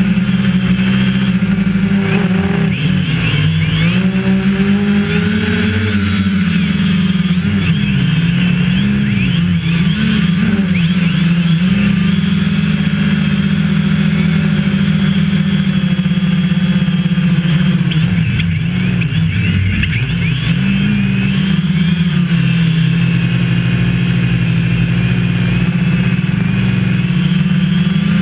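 DJI Phantom quadcopter's four motors and propellers buzzing loudly, picked up close by the GoPro mounted on the airframe, with a thin high whine above. The pitch wavers and dips as the motor speeds change in flight, most clearly a few seconds in and again about two-thirds through.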